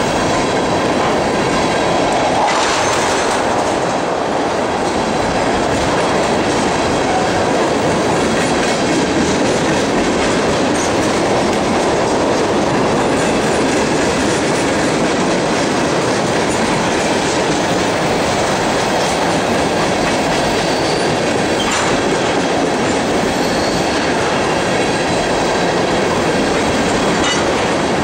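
A freight train's string of empty tank cars rolling past close by, a steady, loud noise of steel wheels running on the rails.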